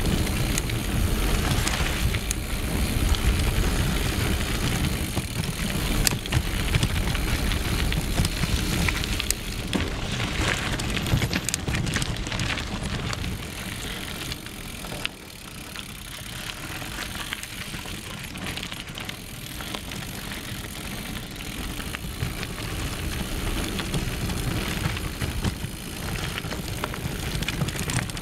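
Mountain bike riding fast down a dirt forest singletrack: knobby tyres rolling and the bike rattling, with short knocks over bumps and a steady low rumble of wind on the microphone. It gets a little quieter about halfway through.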